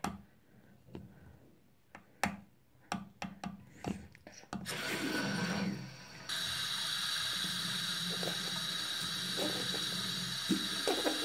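Clicks and knocks as the bathroom sink's single-lever tap is handled, then the tap opens about four and a half seconds in and water runs steadily into the sink, the flow coming on fuller about six seconds in. A few splashes near the end as a hand goes under the stream.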